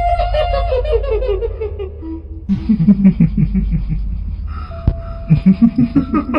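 A woman's laugh voicing the kuntilanak ghost: a high, drawn-out note sliding down, then a deeper, rapid cackle in short pulses that breaks off and starts again, over a steady low droning hum.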